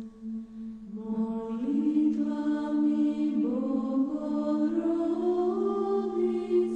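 Orthodox church chant: voices hold a steady drone note while a melody line enters about a second in and climbs in steps above it.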